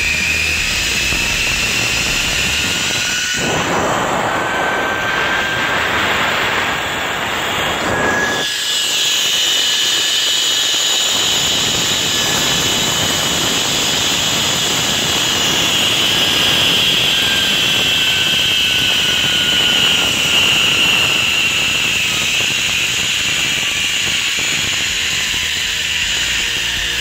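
Zip-line trolley pulleys running along a steel cable: a loud, steady whir with a high whine that rises in pitch and later falls. A few seconds in, a broad rush of wind noise lasts about five seconds.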